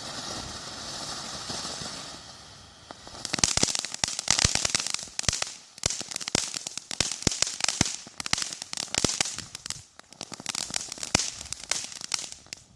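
World Class 'Frosty Mug of Beer' firework fountain spraying with a steady hiss for about three seconds, then switching to dense, rapid crackling pops that stop suddenly near the end as it burns out.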